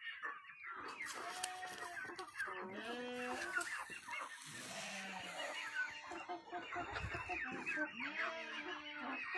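Flock of Light Brahma chickens clucking and calling, many short calls overlapping without a break.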